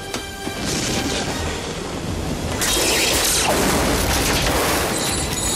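Storm sound effects for a ship in a storm: deep booms over a steady rush of wind and water, growing louder about two and a half seconds in.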